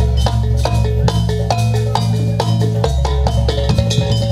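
Live gamelan music for a jaranan tiger dance: struck metal gongs and metallophones ring out quick rhythmic notes over drums and a steady deep low tone.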